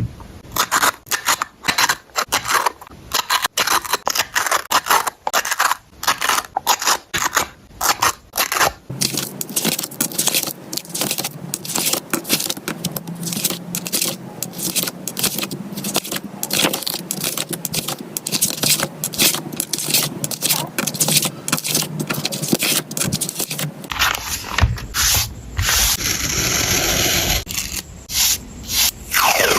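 Close-up paper and stationery handling while a journal spread is laid out: a rapid, irregular run of short scrapes, rustles and crackles.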